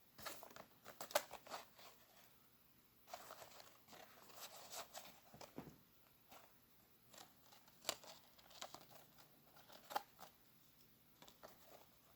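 Packaging crinkling and rustling as the sneakers are handled. It comes in several short spells of crackles and clicks with quiet gaps between them.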